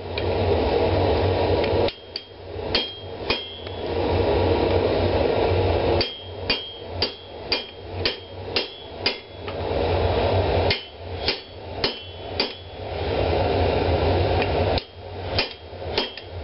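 Hand hammer striking red-hot steel of a tomahawk head on an anvil, in four runs of four to seven blows at about two a second, each blow with a short metallic ring. A steady rushing noise fills the pauses between runs.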